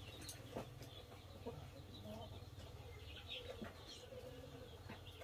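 Faint clucking of chickens, with a few light clicks, over a steady low hum.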